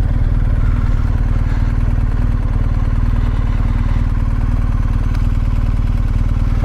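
BMW R 1250 GS Adventure's boxer-twin engine running steadily at an even, low speed, with no revving.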